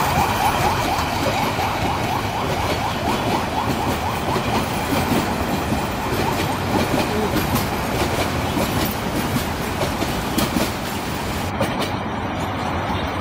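Bangladesh Railway passenger coaches rolling past at close range: a steady rumble of wheels on rail with a run of knocks as the wheels cross the rail joints.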